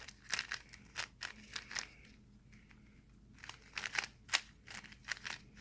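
A GAN 365 Air speed cube's plastic layers being turned by hand in quick runs of clicks, with a pause of about a second and a half in the middle.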